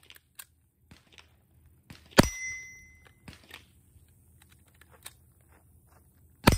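Two gunshots from an AR-style rifle, one about two seconds in and one near the end. Each shot is followed by a ringing metallic ding, as of a steel target being hit. Light clicks of the rifle being handled come before the first shot.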